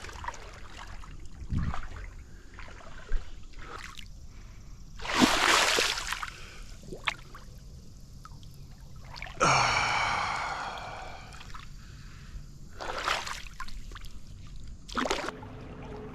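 Lake water splashing in several bursts, the loudest about nine and a half seconds in, with a person breathing hard between them.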